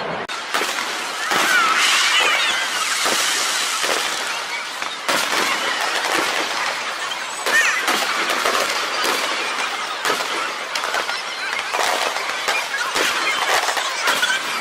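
Fireworks crackling, with many sharp pops over a steady hiss of crackle and a few brief whistling glides.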